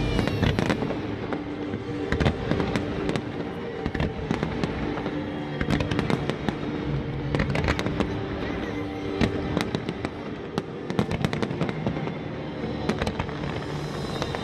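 Fireworks display: frequent sharp bangs and crackling bursts, over music with long held tones.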